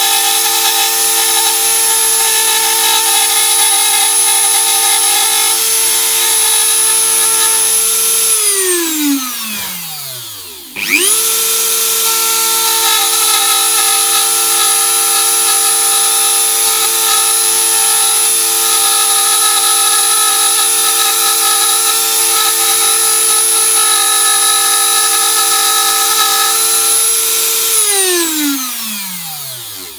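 Dremel rotary tool with a routing bit running at full speed, a high steady whine. About eight seconds in it is switched off and winds down, falling in pitch. It then spins straight back up to speed in under a second, runs on steadily, and winds down again near the end.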